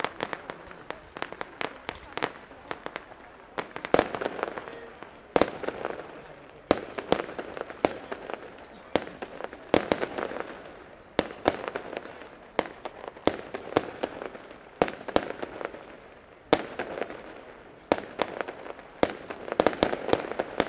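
Aerial fireworks display: a continuous, irregular barrage of sharp bangs from bursting shells, often several a second, with a steady crackling haze between them.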